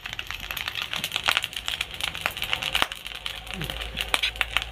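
Close-up eating sounds of a person eating rice biryani by hand from a steel plate: a steady run of quick wet clicks and smacks from chewing and from fingers working the rice.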